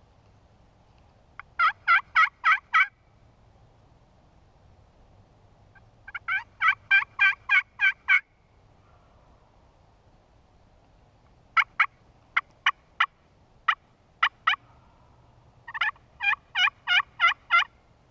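Wild turkey yelping close by: four runs of rapid, repeated yelps, the third made of sharper, more widely spaced notes.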